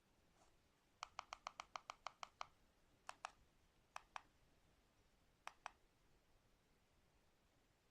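Sharp small clicks: a quick run of about eight, some six a second, then three pairs of clicks, each pair a split second apart, like a press and release.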